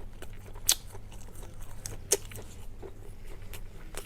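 Close-up eating: chewing with scattered small clicks and crunches. Two louder sharp clicks come, one under a second in and one about two seconds in.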